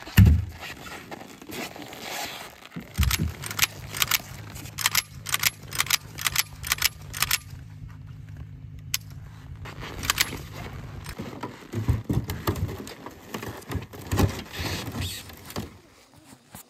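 Bursts of sharp metallic clicks and rattles as a rifle is handled, over the low steady hum of an idling engine that stops about eleven seconds in.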